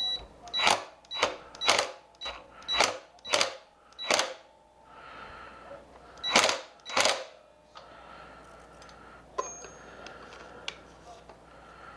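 Hammer blows on the metal wheelie peg and bolt on an e-bike frame, each one ringing briefly: about seven quick strikes, a pause, then two more, followed by a few light ticks. They are trying to knock a crooked peg bolt that won't catch its threads into place.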